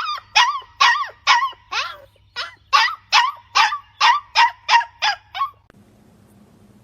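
A dog barking in a quick run of about a dozen short, high-pitched yaps, two to three a second, stopping abruptly near the end.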